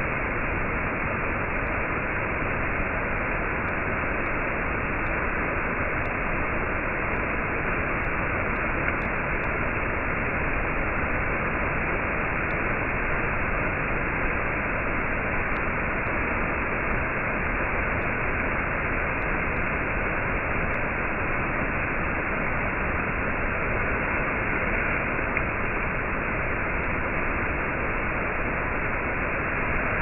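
Waterfall rushing down a rock face, a steady, unbroken wash of falling water.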